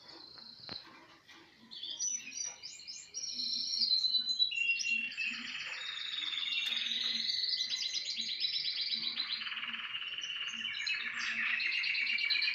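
Male red canaries singing: sparse short phrases at first, then from about three seconds in a dense run of rapid trills and rolls.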